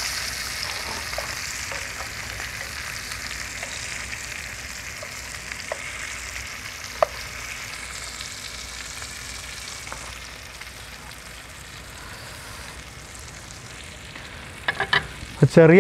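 Masala-coated fish sizzling in hot oil in a small frying pan, a steady sizzle that slowly eases, with a few faint clicks.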